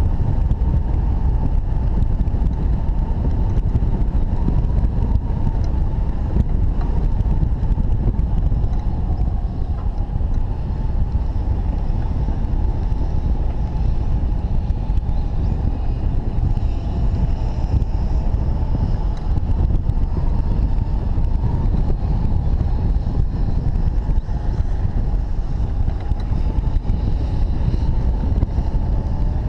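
Steady rush of airflow buffeting the microphone of a camera mounted on a hang glider's wing in flight, with a faint steady high tone running underneath.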